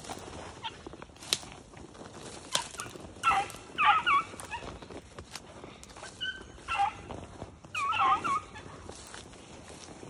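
Hunting beagles baying in three bunches of short, wavering cries, about three to eight seconds in, with scattered sharp clicks in between.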